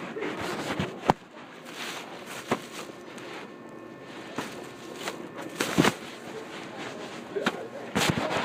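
A woman coughing in a few short, sharp bursts, the loudest about two-thirds of the way in and near the end, over a steady background hubbub.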